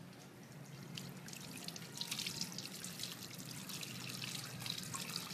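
Kitchen tap running onto a squid being rinsed by hand in a stainless steel sink: water splashing and trickling off the squid and hands, louder from about two seconds in.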